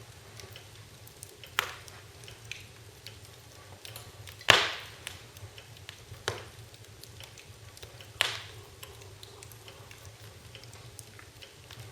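Wood fire crackling in a fireplace: a steady low rumble with many small ticks, and four sharp pops, the loudest about four and a half seconds in.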